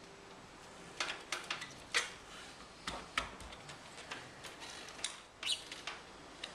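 Trim-removal tools prying a barbed plastic fir-tree fastener plug out of a car's roof channel: a string of irregular light clicks and scrapes.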